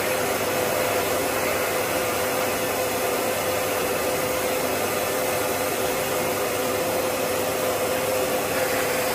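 Vacuum cleaner running steadily: an even rush of air with a steady mid-pitched whine.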